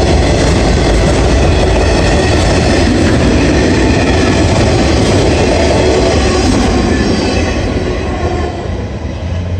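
Loaded autorack freight cars rolling past close by: a loud, steady rumble and rattle of steel wheels on the rails, easing off over the last couple of seconds as the cars move away.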